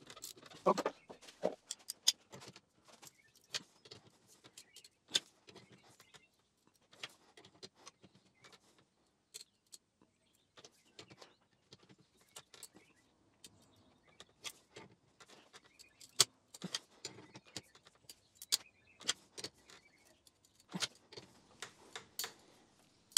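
Irregular metallic clicks and clinks of a ratchet wrench and socket being fitted and worked on a bolt, spaced out with quiet gaps and coming more closely together later on.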